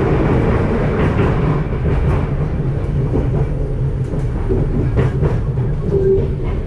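Detroit People Mover linear-induction-motor train car running along its elevated steel track, heard from inside the car: a steady low rumble, with a few sharp clicks about five seconds in and a short tone near the end.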